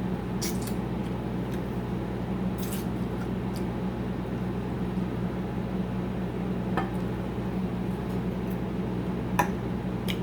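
Eating sounds: chewing and mouth noises from a mouthful of baked chicken, with a few short clicks of a fork against a plate, over a steady low hum.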